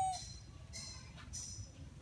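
High-pitched animal calls: a brief steady whistled note right at the start, then two short shrill calls about half a second apart, over a low outdoor rumble.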